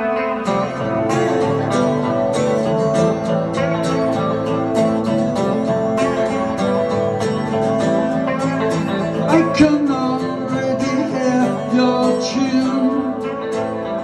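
Acoustic guitar strummed in a steady rhythm, playing the opening of a song live.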